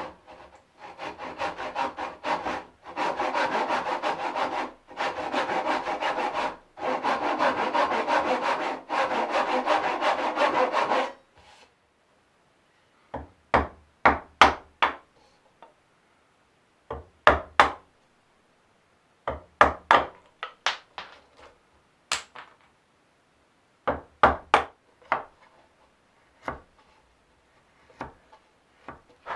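Hand saw cutting wood in runs of quick strokes, with short pauses between runs, for about the first eleven seconds. Then a series of sharp knocks in small groups.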